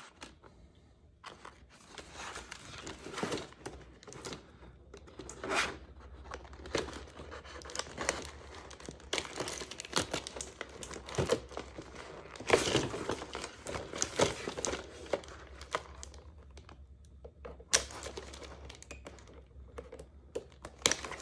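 Clear plastic blister packaging crinkling and rustling in irregular bursts as hands pull it and the doll stands out of a cardboard toy box.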